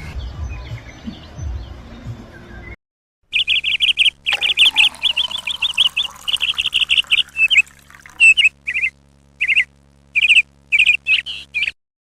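A small songbird singing: rapid runs of repeated high chirping notes, breaking into separate short calls toward the end. Before it, a couple of seconds of faint outdoor background and a moment of silence.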